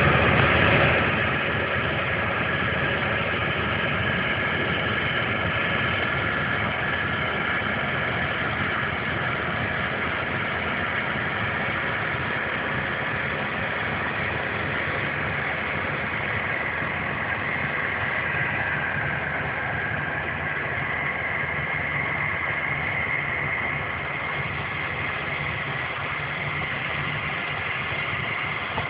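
Fahr M1000 combine harvester running under load while harvesting: a steady drone of engine and threshing machinery, a little louder for the first second.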